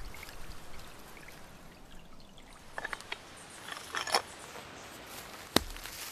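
A faint trickle of water, then a few light metal clicks and rattles of a folding shovel being handled about three and four seconds in. A sharp strike near the end, the loudest sound, as the shovel's blade bites into the earth.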